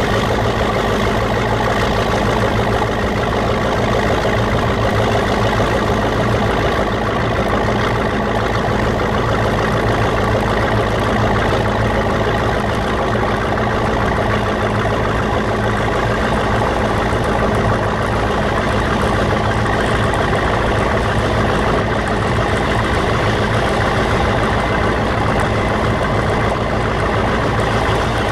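The slow-running turbocharged MAN diesel engine of a Krauss-Maffei ML 440 C locomotive burbling steadily under load at low revs, climbing a 25‰ grade in second gear of its hydraulic transmission, with the turbocharger audible over it.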